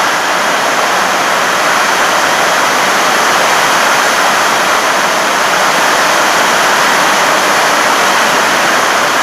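Heavy rain pouring down in a storm, a loud, even hiss with no breaks.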